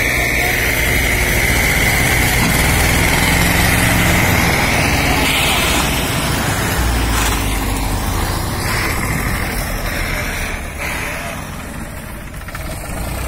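Diesel tractor engines of a Mahindra 265 DI and an Escort 335 running steadily at idle, with a high steady whine over them that fades out about five seconds in.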